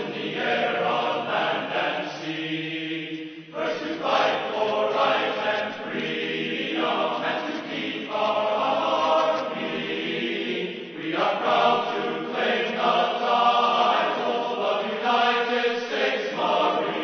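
Background music with choral singing in long held notes.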